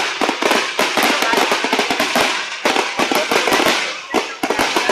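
Fireworks crackling and popping in a dense, rapid stream of sharp cracks.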